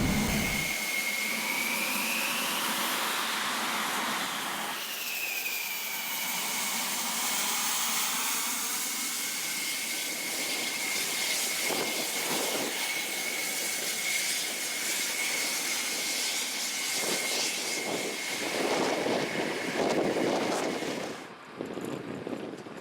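Fighter jet's turbine engine running with a steady high whine, its pitch rising and falling back a few seconds in.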